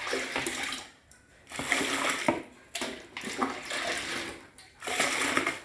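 Liquid soap mixture being stirred with a wooden stick in a large bowl: wet sloshing swishes in repeated strokes about a second long, as the soap base and water are worked to thicken.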